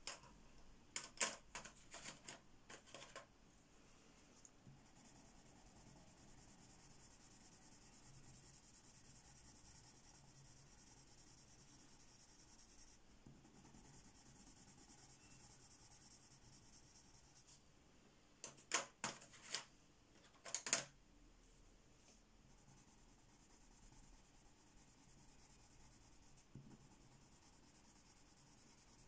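Faint scratching of a coloured pencil shading swatches on thin photocopy paper. Two short clusters of light clicks and taps come from pencils being handled, one just after the start and one about two-thirds of the way through.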